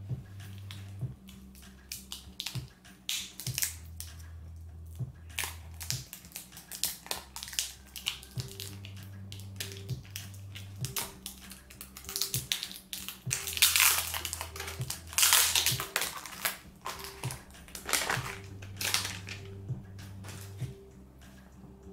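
Hands handling a Samsung Galaxy Z Fold 4 phone and its packaging: scattered crackly clicks and rustles, densest and loudest about two-thirds of the way in. Soft background music with a repeating bass pattern plays underneath.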